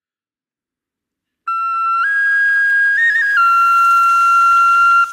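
Intro music: a solo flute begins about a second and a half in and plays a slow melody of long held notes, with a quick ornament in the middle.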